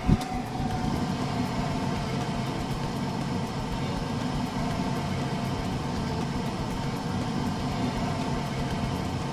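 Steady, low engine-like rumble of a cartoon machine sound effect, beginning with a brief low swoop.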